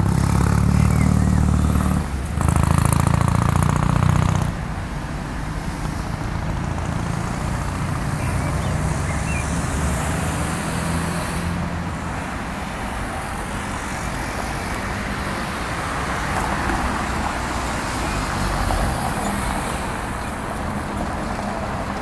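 Urban road traffic: cars and other vehicles passing on a city street. A loud low rumble of a nearby vehicle fills the first four seconds or so, then steady traffic noise follows.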